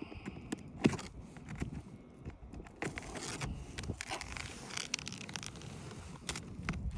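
Hand work on asphalt roof shingles: irregular scraping, crackling and small clicks as a thin-blade scraper works under the shingles, with one sharper click about a second in.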